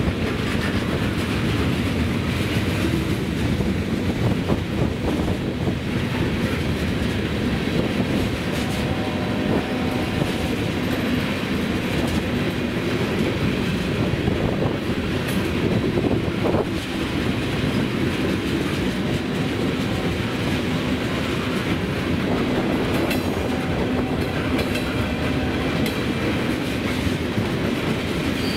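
Canadian National freight train of tank cars rolling past: a steady rumble and clatter of steel wheels on rail.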